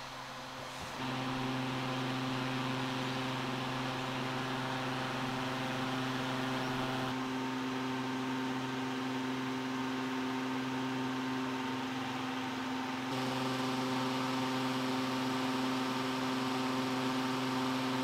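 A steady, low mechanical hum with a fixed pitch, over a faint hiss. It gets louder about a second in.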